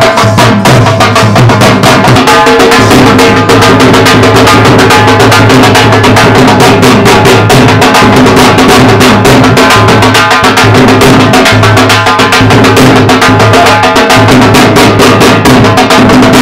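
Loud dhol drumming in a fast, even dance beat, with a held melody line running under it.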